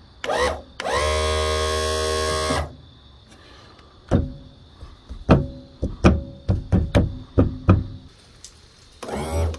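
Electric motor of a rebuilt Johnson outboard power trim and tilt pump whirring in a short blip, then running steadily for about two seconds as it moves the motor. It is followed by a string of sharp clicks and knocks, and another short whir near the end.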